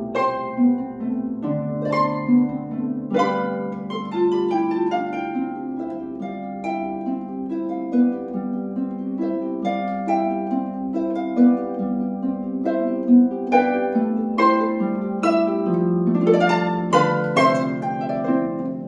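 Concert harp played solo: plucked melody notes ringing over lower bass notes, with a quicker, louder run of notes near the end.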